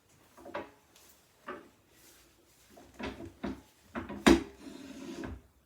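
Clunks, knocks and scrapes of a lathe's metal tool rest being moved and its height dropped, with the lathe stopped. About six separate knocks, the loudest a little past four seconds in.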